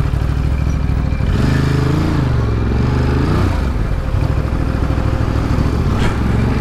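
Ducati Monster's V-twin engine running in slow traffic, the revs rising and falling twice in the first half, then holding steady, with wind rush on the on-bike microphone.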